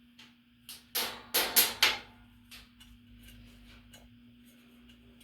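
A quick run of about six sharp clicks and knocks in the first two seconds, like small hard parts being handled, over a faint steady hum.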